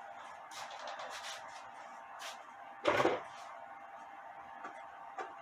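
Light clicks and rustles of small clock parts being handled and searched through, with one louder short clatter about three seconds in.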